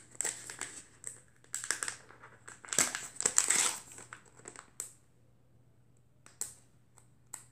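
Small product packaging crinkling and rustling as it is opened by hand, in irregular bursts for about the first five seconds, then a couple of short clicks near the end.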